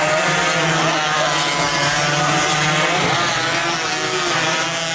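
Several racing motorcycle engines revving hard, their pitch rising and falling as the riders accelerate and shift, over an even background noise.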